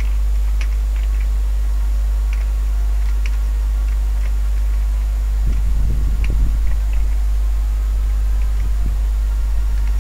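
Steady low electrical hum on the recording, with scattered faint clicks typical of a computer mouse and keyboard in use, and a brief low rumble about six seconds in.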